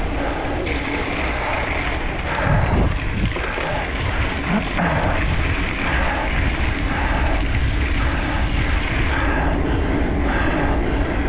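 Wind rushing over an action camera's microphone, with the rattle and tyre noise of a mountain bike being ridden over rough ground: a steady rush with frequent short knocks.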